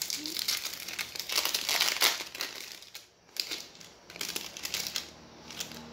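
Foil wrapper of a Topps Chrome baseball card pack being torn open and crinkled by hand: a run of crackling for about three seconds, a brief pause, then more crinkling that fades off.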